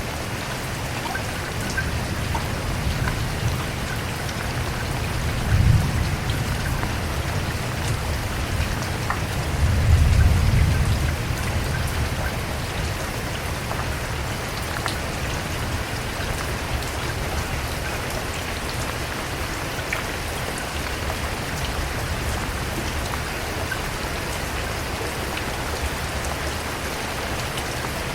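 Steady heavy rain falling, an even hiss of drops. Two low rumbles swell under it: a short one about six seconds in and a longer, louder one around ten seconds.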